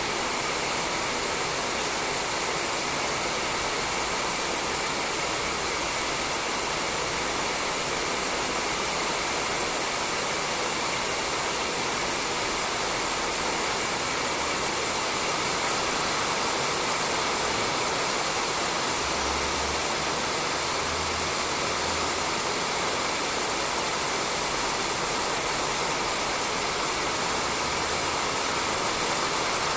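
Steady rain falling on a roof: a constant hiss of drops with no let-up.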